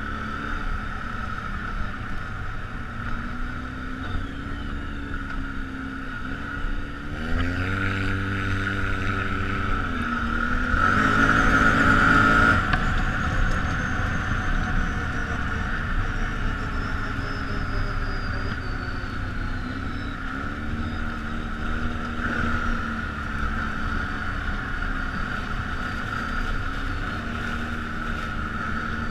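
ATV engine running over a rocky trail with a steady high whine, revving up about seven seconds in and again near the twenty-two-second mark, loudest around twelve seconds in.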